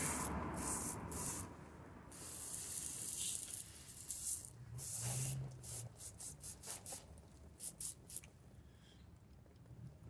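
Washing-soda and dish-soap cleaning solution being sprayed over a typewriter's mechanism to wet it: hissing squirts, long at first, then shorter and sparser.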